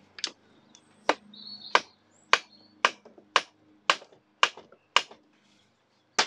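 Hammer tapping a driver seated in a big Phillips retaining screw on a Yamaha TZR 125 crankcase to shock it loose. About ten sharp metallic taps, roughly two a second, then a quick pair of taps near the end.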